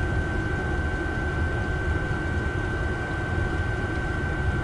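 Chinese 8 kW diesel air heater running on full power: a steady roar from its burner and blower, with a constant high whine over it.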